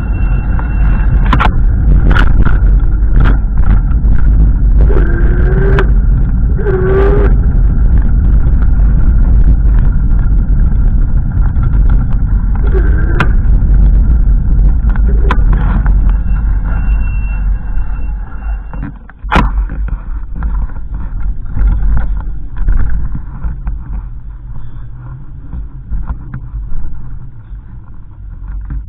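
Strong wind buffeting the microphone: a loud low rumble that eases suddenly about two-thirds of the way through and then comes in gusts, with scattered clicks.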